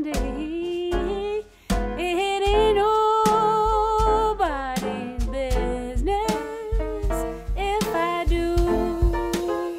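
Female jazz vocal holding long sung notes, one held for nearly two seconds partway through, over an upright piano and a drum kit played with brushes.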